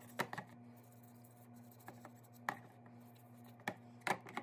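Scattered light clicks and knocks, about six in all, from small faucet parts being handled and cleaned, over a steady low hum.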